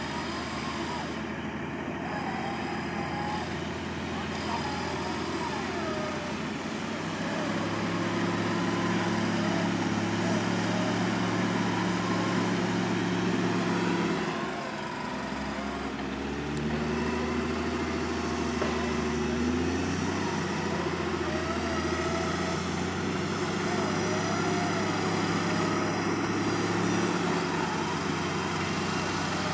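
Off-road 4x4's engine running with changing revs. The revs rise about a quarter of the way in, ease off briefly around the middle, then pick up again.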